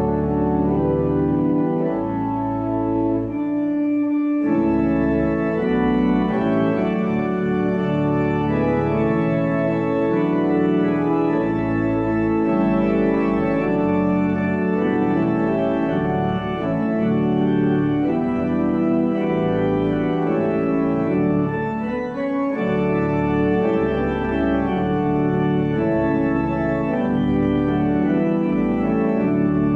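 Church pipe organ playing a slow piece in sustained full chords over deep pedal bass notes, with short breaks between phrases about four seconds in and again about 22 seconds in.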